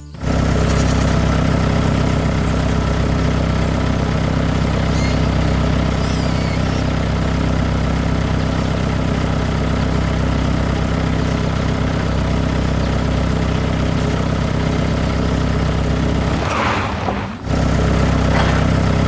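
Tractor engine running steadily at a low, even pitch. It drops out for about a second near the end, then carries on.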